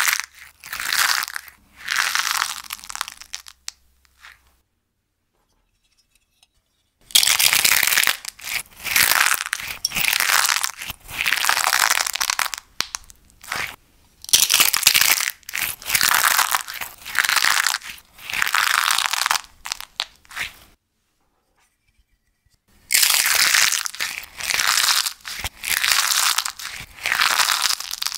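Crispy slime bowls crushed in the fists, their hardened outer crust crackling and crunching in repeated bursts of about a second each. The crunching stops twice for a few seconds.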